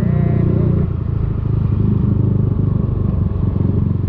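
Yamaha Aerox 155 scooter's single-cylinder engine running steadily as it is ridden along the street.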